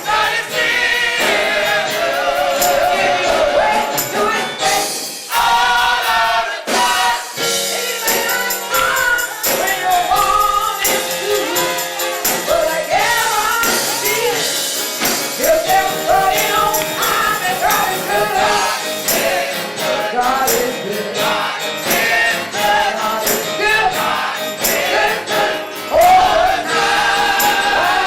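Gospel music: a choir singing with tambourine and band accompaniment.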